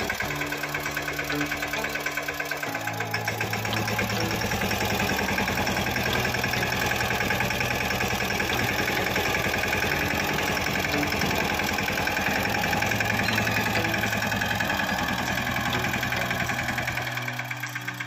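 Single-cylinder diesel engine of a Mahindra Yuvraj 215 mini tractor chugging steadily with a rapid firing beat as the tractor pulls a cultivator through the soil. The low end of the engine sound drops away near the end.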